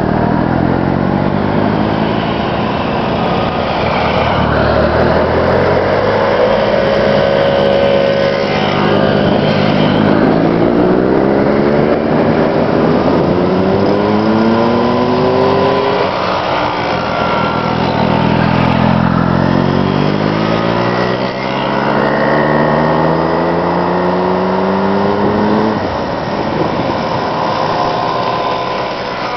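Several VéloSoleX mopeds' small two-stroke engines running together, their overlapping notes climbing in pitch again and again as the riders come up one after another.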